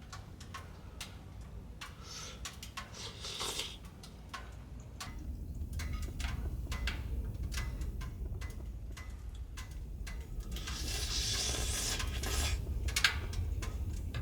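Wind rumbling and gusting, swelling about a third of the way in with a hissing gust near the end, over scattered light ticks and taps.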